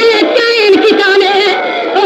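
A voice singing a Muharram lament in long, held, wavering notes, in the melodic chanting style of a majlis recitation.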